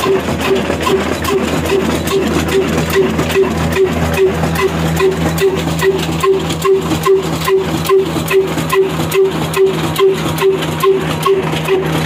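Big old 45 HP black diesel oil engine running steadily at slow speed, with a regular heavy beat of about four firing pulses a second.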